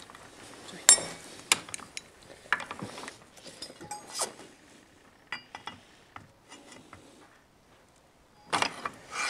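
Sharp metallic clicks and clinks of pliers jaws gripping and knocking against the seized flange nut of an angle grinder's cutting disc. The loudest click comes about a second in, a few more follow over the next three seconds, then fainter ones, with a short cluster near the end.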